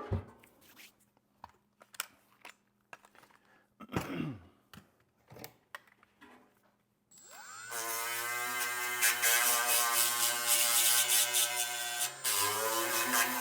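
A few handling clicks and knocks, then about seven seconds in a hand-held electric grinder spins up and runs steadily, cleaning the steel oil pan around the freshly drilled hole down to bare metal. It stops briefly near the end and spins up again.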